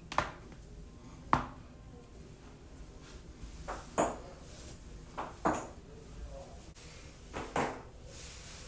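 Body joints cracking: a series of sharp, short pops, about eight in all, spread unevenly and some coming in quick pairs.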